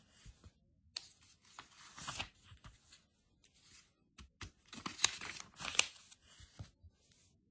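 Glossy paper catalogue pages being turned and handled by hand: a run of paper rustles and swishes, the two sharpest close together past the middle.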